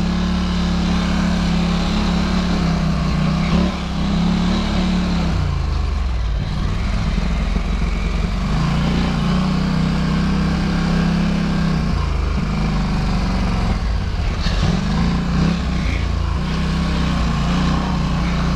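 Polaris Scrambler ATV engine running under load while riding off-road, its note rising and falling several times as the throttle is opened and backed off.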